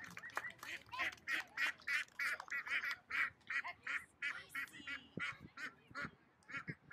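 Domestic white ducks quacking in a rapid run of short calls, about three a second, thinning out near the end.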